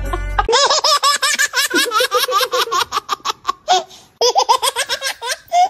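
High-pitched laughter in rapid ha-ha-ha pulses, one long run and then, after a short break about four seconds in, a shorter one.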